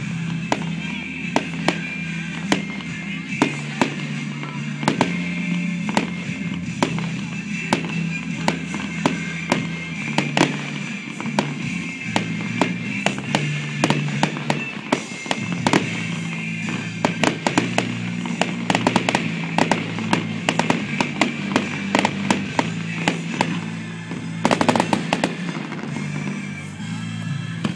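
Fireworks going off: many sharp cracks and pops at irregular intervals, coming thicker in the second half, with a loud cluster of bangs near the end. Music plays throughout underneath.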